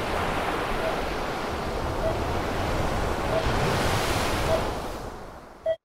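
Stormy ocean waves and wind rushing as a sound effect, swelling about four seconds in and fading away near the end, with faint short beeps a little over a second apart.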